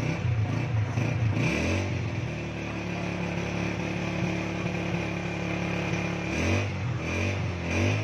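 Engine of a concrete mixer running steadily, its note shifting about a second and a half in and again near the end.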